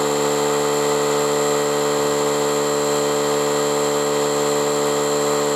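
Air compressor running steadily, a hum with hiss, as a motorcycle tyre is inflated to seat its beads on the rim.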